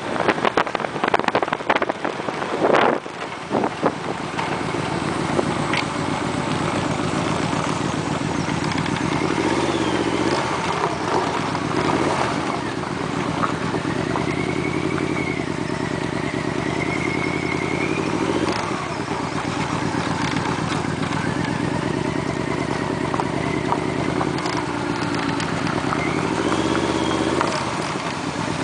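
Motorcycle engine running on the road, its pitch rising and falling a few times with changes of speed. Gusty wind buffets the microphone over the first few seconds.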